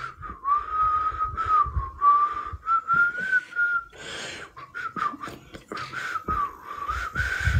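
A man whistling through pursed lips, a single wavering tone that drifts up and down as a melody. It breaks off briefly about halfway through with a breath, then resumes.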